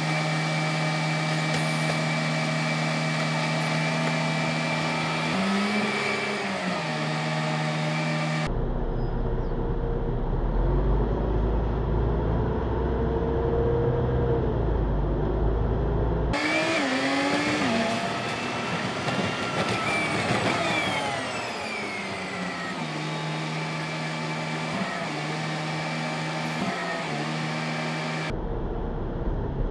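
Vehicle engine in several short clips spliced together with abrupt cuts. It idles steadily in the first and last clips and pulls away in the middle ones, its pitch rising and falling as it accelerates.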